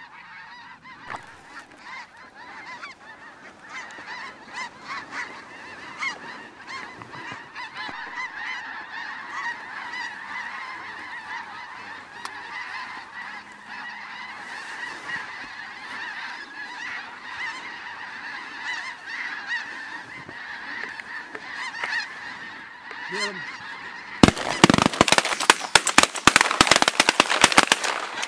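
A large flock of snow geese calling overhead: many high, overlapping honks without a break. In the last four seconds a dense run of loud, sharp crackling clicks rises over the calls.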